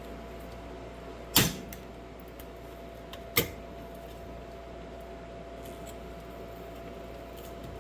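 Two short sharp clicks, about two seconds apart, over a steady low hum.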